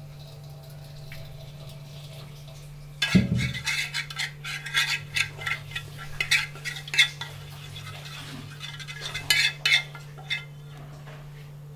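A spoon scraping and clinking against a pan in quick, irregular strokes, starting about three seconds in.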